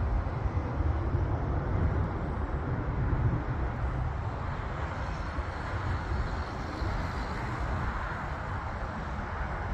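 Jet aircraft climbing away after takeoff: the steady rumbling rush of its jet engines, easing slightly after about four seconds as it moves off.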